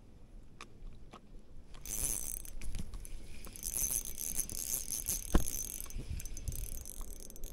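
Fishing reel being worked: faint ticking at first, then from about two seconds in a hissing whir of the spool and line that stops and starts again, with one sharp click a little after five seconds.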